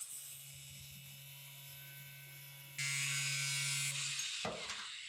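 4-inch angle grinder running, then cutting into steel plate for about a second with a louder, hissing grind, before it winds down.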